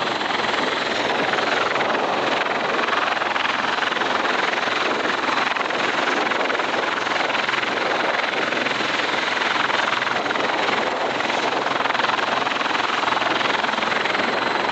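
Bell V-280 Valor tiltrotor's two proprotors and turboshaft engines running at hover power in helicopter mode: a loud, steady rotor and turbine noise with a faint high whine.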